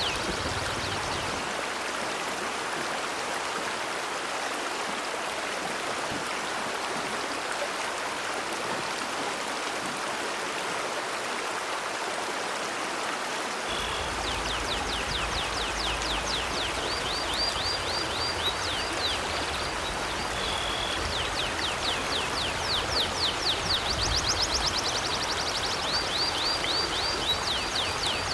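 A river flowing steadily. From about halfway through, small birds call over it in quick runs of high, downward-sweeping chirps, with a high trill now and then.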